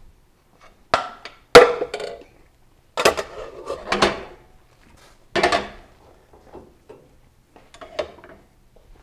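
Dishes and serving utensils clattering and scraping as food is plated, in several separate bursts, with the sharpest knock about a second and a half in.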